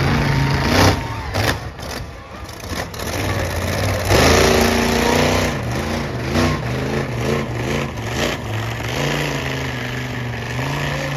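Monster truck engine revving: a sharp burst of throttle about four seconds in, then repeated rises and falls in pitch, settling to a steady run near the end.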